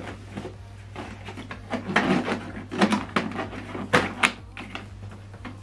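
Handling noises from an Epson XP-5200 inkjet printer's plastic casing: a few scattered knocks and clicks as it is gripped, shifted and its top parts touched, over a steady low hum.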